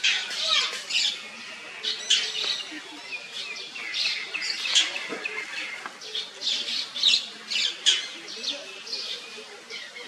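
Birds chirping: many short, high calls in quick succession, one after another.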